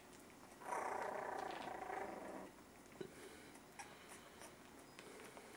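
A 3.5-week-old miniature schnauzer puppy growls once, a rough, pulsing sound lasting about two seconds, starting just under a second in. Faint scuffling and small clicks from the puppies moving about follow.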